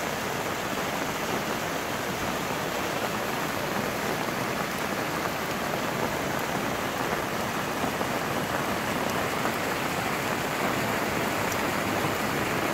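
Steady rain falling, with floodwater running across the street.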